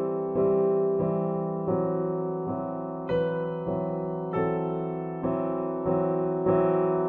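Slow background piano music, with chords struck about once a second and left to fade.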